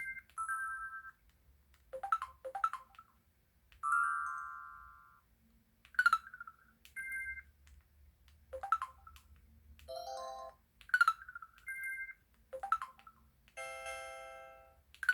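Samsung Anycall SPH-V9500 slim folder phone playing a built-in electronic ringtone melody: short chime-like notes with sharp attacks, separated by brief gaps.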